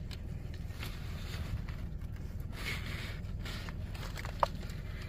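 Paper sandwich wrapper rustling and crinkling in short bursts as a sandwich is picked up and handled, over a steady low hum inside a car.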